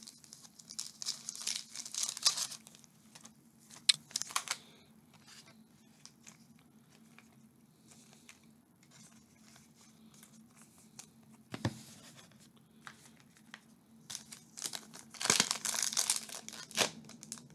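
Trading card pack wrapper being torn open and crinkled by hand, in bursts over the first few seconds and again near the end, with a quiet stretch in the middle broken by one sharp click.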